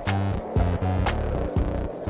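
Background music with a steady beat: a pulsing bass line under sharp percussion hits about once a second.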